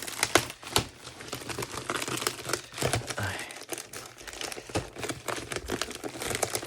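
Packaging being handled and opened by hand: irregular crinkling and crackling with many sharp clicks.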